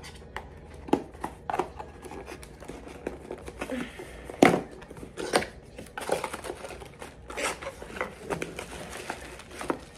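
Handling of a newly unboxed phone accessory and its packaging: irregular plastic clicks and taps with some crinkling, the loudest knock about four and a half seconds in.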